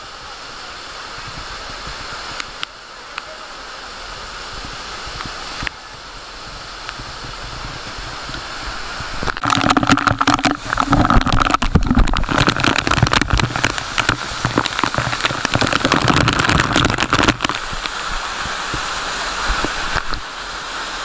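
Rushing water of a monsoon waterfall, a steady noise that turns much louder and uneven from about nine seconds in, then eases a little near the end.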